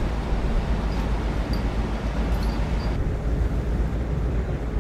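Steady low rumble of a ship's engines and deck machinery, with a hiss of wind over the open deck and a few faint high ticks. The hiss drops about three seconds in.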